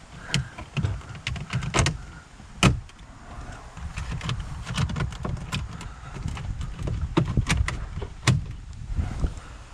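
Plastic dashboard trim pieces being handled and fitted into place: irregular clicks and knocks, the sharpest about two and a half seconds in.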